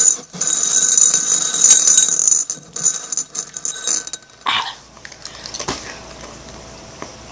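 A steady, high electronic ringing tone, alarm-like, holding with brief breaks for about four seconds and then stopping, leaving faint room noise.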